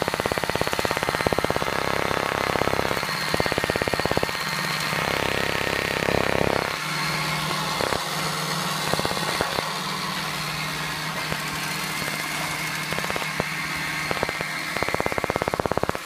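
Makita RC200DZ cordless robot vacuum cleaner running: a steady motor hum and whir with a fast rattle at times, and a few light knocks in the second half.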